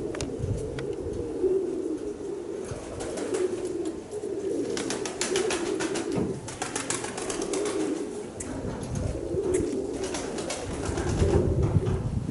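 Domestic pigeons cooing over and over, with strong wind buffeting the microphone in gusts and scattered short crackles.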